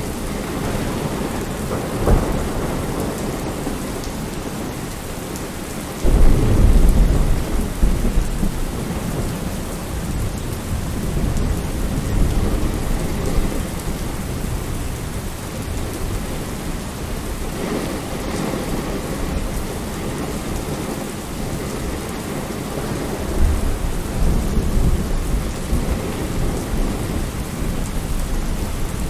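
Steady rain falling, with low rumbles of thunder: one breaks in suddenly about six seconds in and rolls on for a few seconds, another swells near the end.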